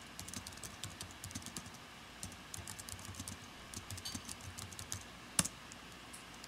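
Computer keyboard typing, a quick run of light key clicks as a terminal command is typed, with one louder key press near the end as the Return key sends the command.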